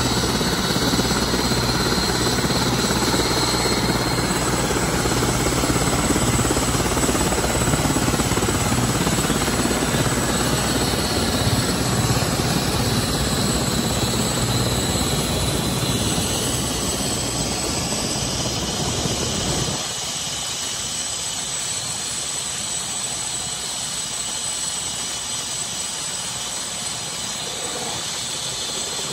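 Aircraft turbine engine running: a steady loud rush with a thin high whine. The deepest part of the sound drops away about twenty seconds in.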